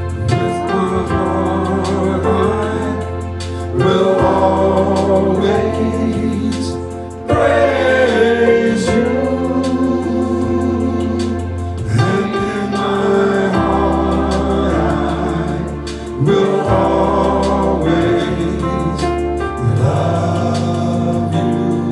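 Gospel choir singing over keyboard accompaniment with a steady bass, the chords changing every few seconds.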